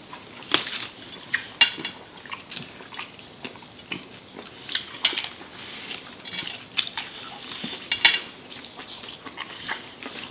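Close-up eating sounds: irregular crunchy bites and chewing of chicken wings, with scattered sharp clicks and light clatter of dishes.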